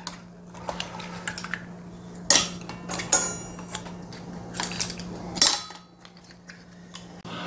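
Spoon and chopsticks clinking against stainless steel soup bowls while scooping clam soup: scattered sharp clinks, the loudest about two, three and five and a half seconds in, some ringing briefly.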